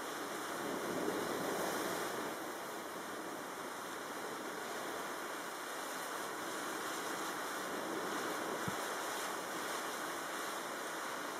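Tropical-storm wind and choppy, wind-driven water making a steady rushing noise that swells briefly about a second in.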